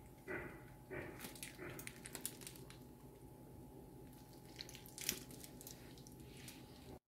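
Faint liquid sounds of warm chocolate ganache being poured into small plastic cups, with light drips and small clicks over a steady low hum. A sharper click comes about five seconds in, and the sound cuts off abruptly near the end.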